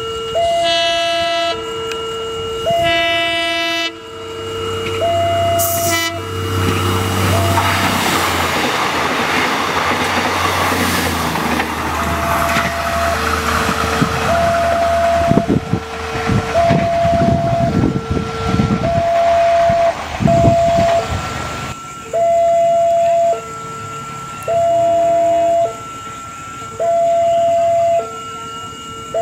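A level-crossing warning alarm alternating between a higher and a lower electronic tone, about one tone a second. A train horn sounds two short blasts near the start, then a train passes with engine rumble, wheel noise and clacks over rail joints until about 22 s in. After that the alarm goes on alone.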